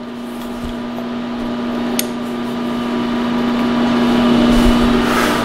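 An electric machine motor running with a steady hum that slowly grows louder. A single sharp metallic click about two seconds in.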